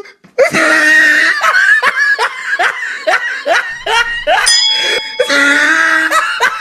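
Someone laughing in a run of short, repeated bursts. About halfway through, a short ringing chime comes in over it.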